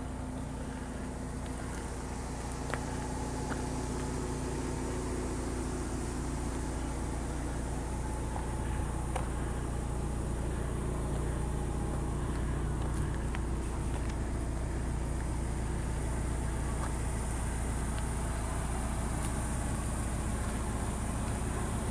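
An engine running steadily at an even pitch, with a steady high hiss above it.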